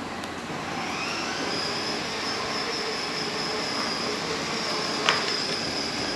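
Electric drive motors and gearbox of a children's battery-powered ride-on car running as it drives its wheels, a steady high whine that rises into place about a second in. A sharp click about five seconds in.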